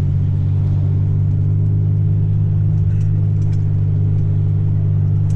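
A car driving at steady speed, heard from inside the cabin: a constant low engine and road drone.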